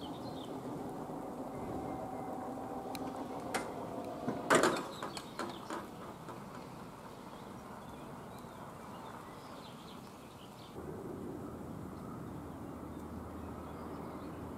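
Level crossing barrier drives running as the red-and-white booms lower, a steady whine, ending about four and a half seconds in with a loud clunk and a few rattling knocks as the booms come down onto their rests.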